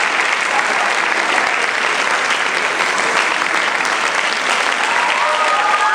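Audience applauding steadily. Near the end a few held, slightly gliding high tones come in over it.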